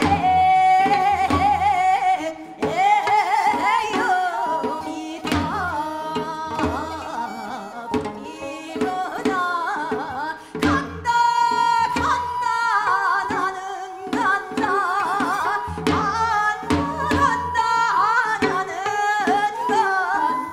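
Seodo sori, the West Korean folk song style, sung with a wide, shaking vibrato over a steady drum accompaniment.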